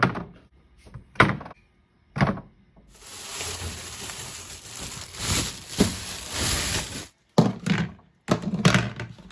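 Kitchen handling sounds: a few sharp knocks and thunks of things being set down or shut, and a steady rushing noise lasting about four seconds in the middle.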